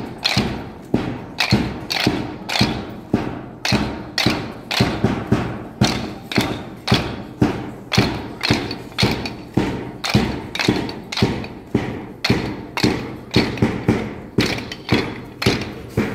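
Wooden drill dumbbells knocked together in time by a group of children, a steady beat of sharp wooden clacks about two a second, some of them slightly doubled where hands fall out of step.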